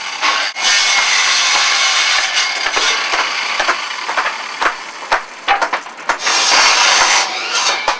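Handheld electric circular saw cutting through timber planks, in two long cuts: one starting about half a second in and running about three seconds, another around six seconds in. Short knocks of wood sound in between.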